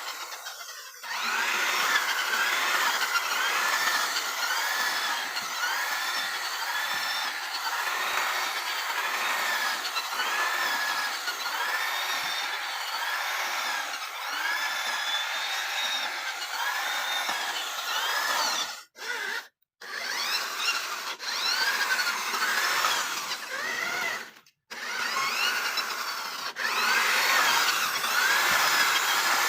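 An electric motor whining steadily under varying load, its pitch dipping and recovering over and over as it works. It cuts out briefly twice around twenty seconds in and once more a few seconds later.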